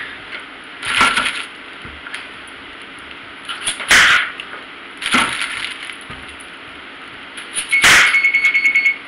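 Kitchen knife cutting through red potatoes and knocking down onto a wooden cutting board, four separate chops a second or more apart. In the last second a steady high electronic beep sounds: the oven signalling that it has finished preheating.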